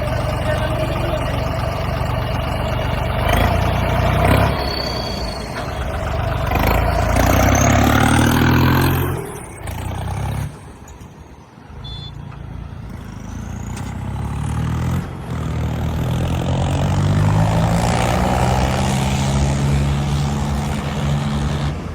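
Tractor engine running under way. It drops away for a few seconds about ten seconds in, then builds back up, rising in pitch.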